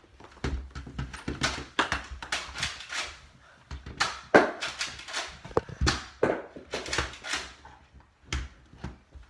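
An irregular run of sharp clicks, knocks and thumps: Nerf blasters firing and foam darts striking furniture and walls in a small room.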